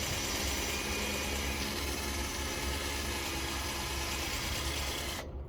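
Power drill running with a metal-drilling bit against the steel of a utility trailer, a steady dense whirring grind that stops abruptly about five seconds in. The bit is not cutting well, which is why it is about to be oiled with WD-40.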